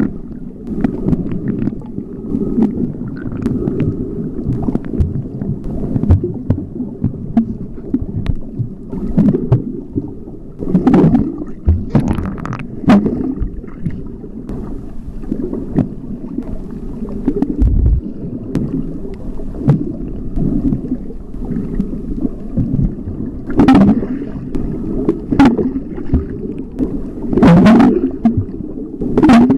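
Muffled underwater rumble of moving water picked up by a submerged camera, with sharp crackling bursts several times.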